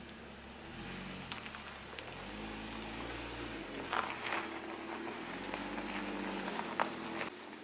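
Porsche Cayman engine running at low revs as the car pulls slowly across a gravel track, its pitch stepping up and down. Tyres crunch on the gravel, with a few sharp crackles of stones about halfway through and near the end.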